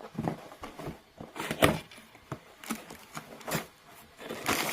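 Irregular taps, clicks and rustles of a parcel being handled and opened during an unboxing, with the strongest knocks about one and a half seconds in and near the end.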